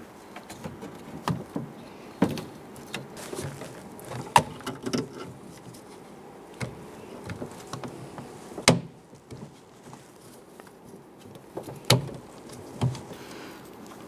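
Scattered clicks, knocks and scrapes of a door lock actuator and plastic window glass guide being worked into place by hand inside a car door, with one sharp click, the loudest, about nine seconds in.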